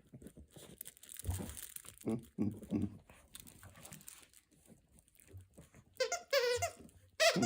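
Pomeranian playing with a plush monkey toy: crinkling and soft thumps, then high wavering squeaks from the toy about six seconds in and again near the end.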